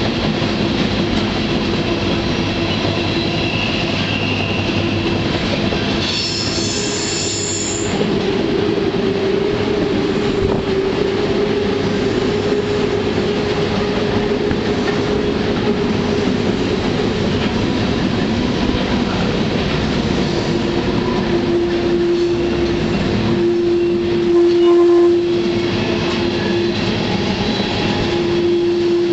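A freight train running, heard from aboard a car: a steady rumble and rattle of wheels on rails with sustained wheel squeal. A brief high-pitched squeal comes about six seconds in, and a strong steady squeal tone sets in over the last several seconds.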